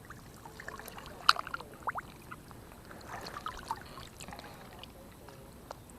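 Light splashing and trickling of shallow water, with a few sharp clicks and small splashes; the sharpest comes a little over a second in.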